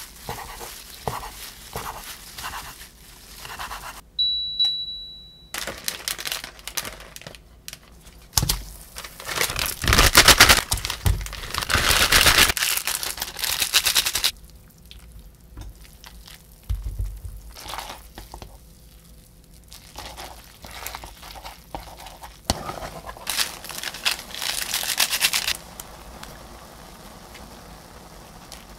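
A kitchen knife tapping through kimbap on a wooden cutting board, then a steady electronic beep lasting about a second and a half. After that come loud crinkling and tearing of instant-noodle packets and seasoning sachets, with quieter rustles and taps in between.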